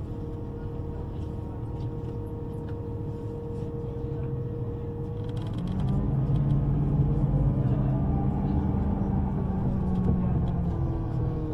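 Electric subway train: a steady hum while it stands, then, after a brief hiss about five seconds in, it gets louder and its traction motors whine in pitches that sweep upward as it pulls away and accelerates.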